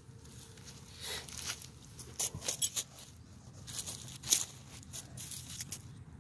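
Handling noise as a wooden wheel is pulled off its axle bolt, with dry grass and leaves crackling and a string of sharp clicks and knocks; the loudest knock comes about four seconds in.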